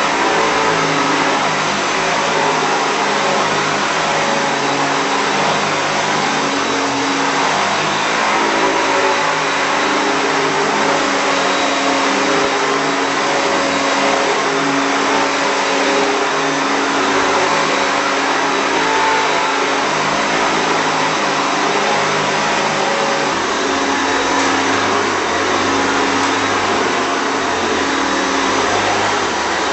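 Hoover Turbolite U4527 upright vacuum cleaner running steadily, its single-speed 400 W motor and brush-roll giving a continuous whirr whose hum wavers slightly in pitch.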